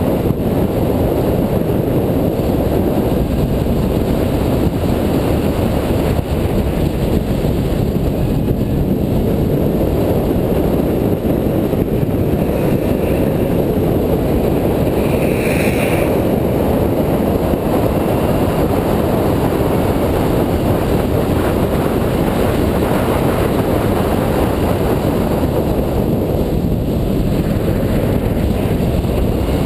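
Steady wind rush over an outside-mounted camera microphone, mixed with the engine and road noise of a supercharged 2004 Mini Cooper S lapping a track at speed. A brief higher-pitched sound cuts in about halfway through.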